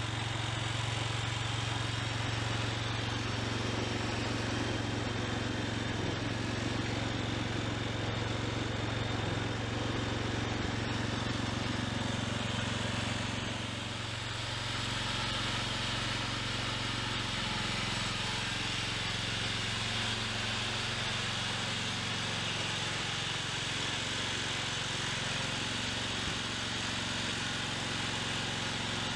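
Garden tractor engine of an International Harvester Cub Cadet running steadily, a constant low hum; the engine note shifts slightly about halfway through.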